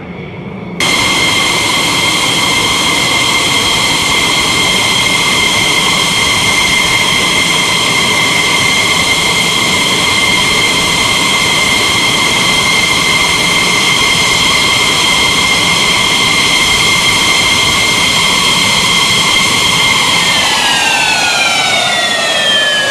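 F-16 jet engine running on the ramp: a loud, steady high-pitched whine over a rushing roar that cuts in abruptly just under a second in. Near the end the whine starts to drop steadily in pitch.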